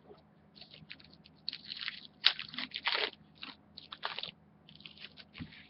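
Crinkling, crackly rustle of trading-card packaging and plastic being handled, in irregular bursts that are loudest about two to three seconds in.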